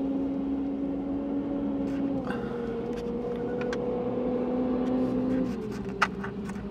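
A car engine humming steadily at idle, its pitch stepping down slightly about two seconds in and again near the end, with a few faint clicks.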